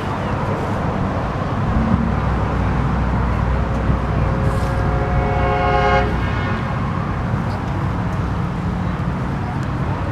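A horn sounds one steady blast of about two and a half seconds, starting about three and a half seconds in, over a low engine rumble and outdoor background noise.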